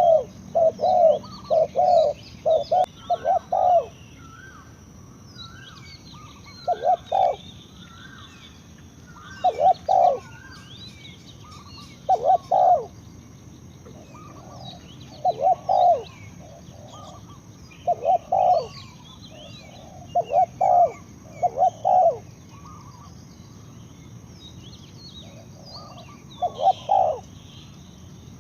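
Spotted dove cooing: short low hooting notes, a quick run of them at first, then pairs and threes repeated every few seconds. Small birds chirp and twitter more faintly in the background.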